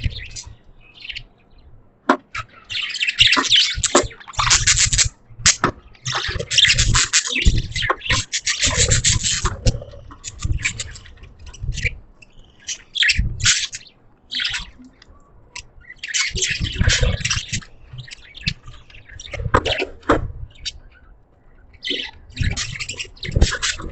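Pet budgerigars chirping and chattering, in bursts of rapid high chirps with quieter gaps of scattered single chirps between.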